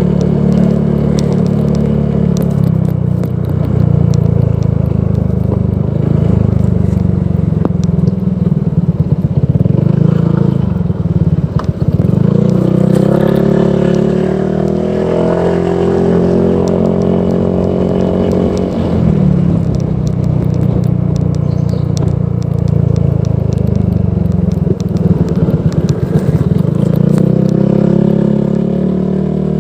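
Honda PCX 160 scooter's single-cylinder engine running through an aftermarket Proliner Neo Silent exhaust, a steady low exhaust note whose pitch rises and falls for several seconds around the middle.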